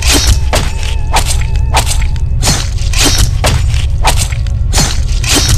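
Knife-attack sound effects for a cartoon horror scene: a run of sharp hits and swishes, roughly two a second, over a steady low rumble and music.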